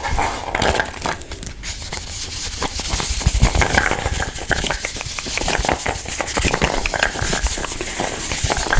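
Dense, fast crackling and crinkling close to the microphone, many small clicks in a row: ASMR trigger sounds made right at the mic.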